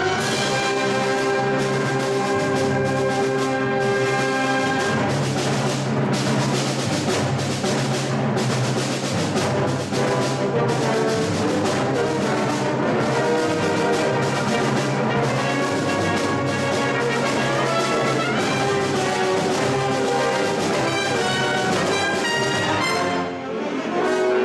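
A full concert band playing, brass to the fore over held chords, with percussion strokes running through it. The sound drops briefly near the end, then the band comes back in.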